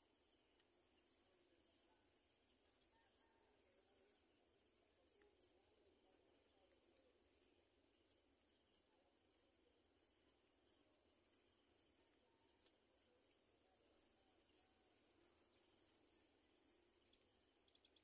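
Quiet outdoor ambience with a faint, thin, high chirp repeating about once or twice a second, starting about two seconds in.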